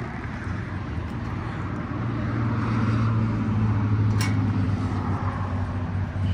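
An engine running steadily, growing louder over the first two seconds and then holding, with a single sharp click about four seconds in.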